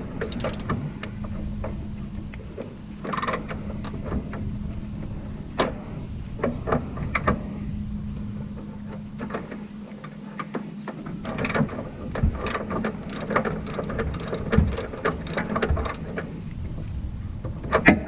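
Ratchet wrench with an extension and spark plug socket working a spark plug on an air-cooled VW flat-four: irregular metal clicks and clinks of the tool, coming thicker in the second half, over a steady low hum.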